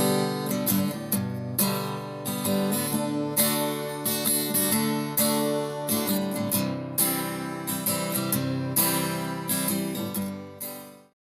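Instrumental music: an acoustic guitar strumming chords in a steady rhythm, fading out near the end.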